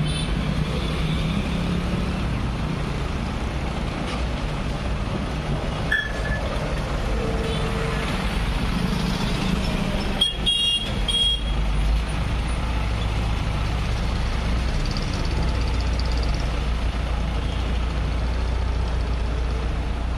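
Road traffic: engines of passing motorcycles and vehicles over a steady low engine rumble, with a vehicle horn honking briefly about halfway through.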